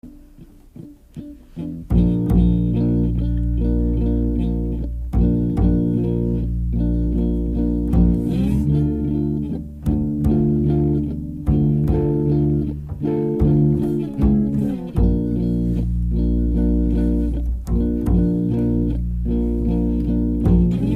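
Background music: the instrumental opening of a song, led by guitar over bass. It comes in fully about two seconds in after a quiet start, with a steady run of changing notes.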